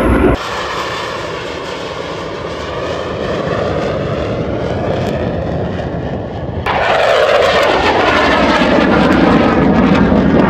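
Military jet aircraft flying past, a loud rushing jet noise. About two thirds of the way through, the sound jumps louder and sweeps downward in pitch as a jet passes close.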